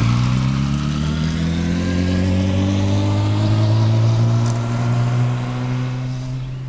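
Motor vehicle engine under steady acceleration, its note rising slowly and evenly over several seconds and easing off a little near the end.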